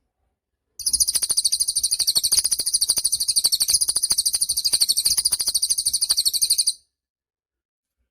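A cililin songbird singing one rapid, very high trill of about six seconds. The trill starts about a second in and stops abruptly.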